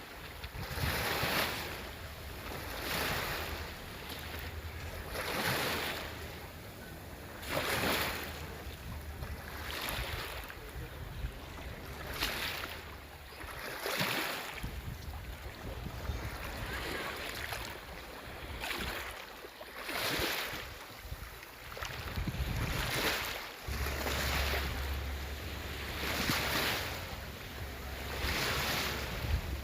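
Small sea waves washing in and drawing back, one every two seconds or so, over a low rumble of wind on the microphone that grows stronger about two-thirds of the way through.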